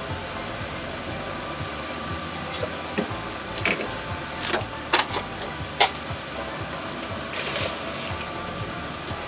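A metal ladle clicking and knocking against a pot several times as a scoop of miso is dissolved into the broth, with a short rustling noise about seven and a half seconds in. A steady hiss runs underneath.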